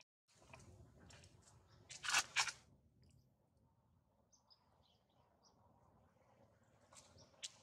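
Dry crackling and rustling, loudest in two quick crunches about two seconds in, with a few faint high bird chirps a little past the middle.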